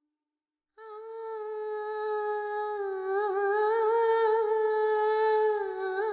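A woman's voice humming a slow, mournful melody in long held notes with a slight waver, as background music. It starts after a moment of silence and steps down to a lower note near the end.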